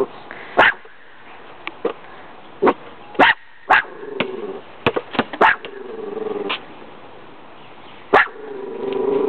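Dogs barking: a string of short, sharp barks and yips at irregular intervals, with a few longer, lower drawn-out vocal sounds between them.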